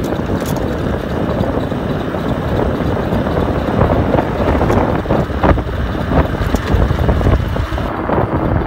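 Wind buffeting the microphone and mountain-bike tyres rumbling on pavement as a bicycle rides at speed, with a few sharp knocks from bumps.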